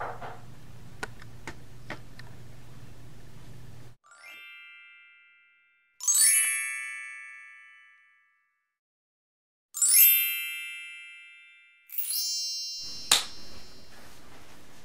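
Bell-like dings, about four of them, each struck sharply and ringing out to nothing over a second or two, in dead silence; faint room hum with a few light clicks comes before the first ding and returns after the last.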